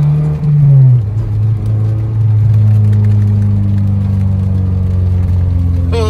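Honda Civic Si's four-cylinder engine running under way, heard from inside the cabin. Its note steps down in pitch about a second in, just after a brief louder surge, then holds steady.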